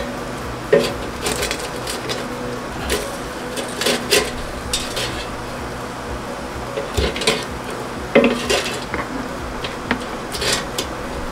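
Plastic spatula scraping and tapping against a nonstick air fryer basket as fish pieces are turned over: irregular clicks and knocks over a steady low hum.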